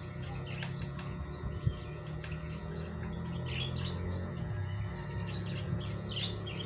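A bird chirping repeatedly, short high chirps about one or two a second, over a steady low hum.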